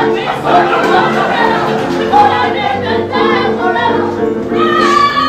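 Live music from a grand piano: a slow run of held chords.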